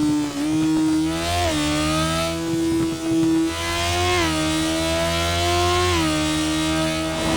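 Sport motorcycle engine pulling at speed, its note climbing slowly with the revs and stepping abruptly about three times, as at gear changes, with a couple of brief dips in level like quick throttle lifts.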